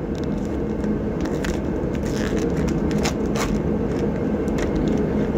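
Several light clicks and scrapes of metal parts being handled as a truck's front wheel hub assembly is fitted, over a steady background hum.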